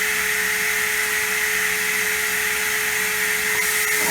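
CNC router spindle running with a steady whine.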